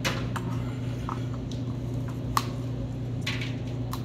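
Scattered small clicks and taps of craft materials being handled on a table (a cardboard toilet-paper tube, sticks and scissors), with one sharper click about two and a half seconds in, over a steady low hum.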